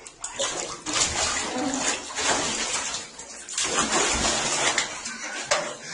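Water splashing in a bathtub as hands wet and wash a cat's fur, the noise swelling and dipping unevenly.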